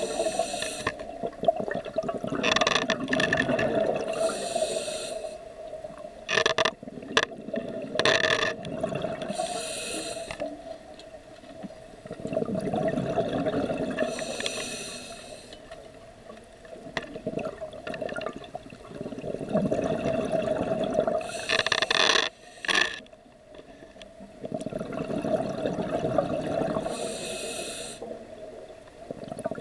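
Scuba diver breathing through a regulator underwater, heard through the camera housing: a brief hiss on each inhale and a longer rush of exhaled bubbles, about one breath every five to six seconds.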